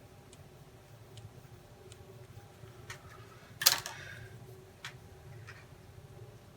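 Light scattered ticks and one sharp clack about three and a half seconds in, from small tools and rocket parts being handled and set down on a work surface while the motor tube is marked.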